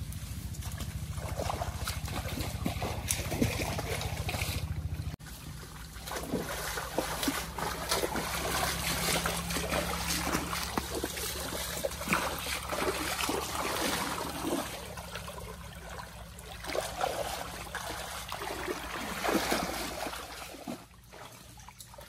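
Rustling and snapping in dense forest undergrowth, with a low wind rumble on the microphone for the first few seconds. After that a shallow forest stream runs and trickles, with many small splashes, crackles and rustles as people move along it and wade in.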